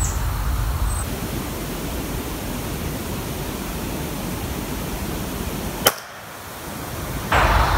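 A single shot from a Marlin 1895SS lever-action rifle firing a .45-70 Government round: one sharp crack about six seconds in, heard over a steady background rush.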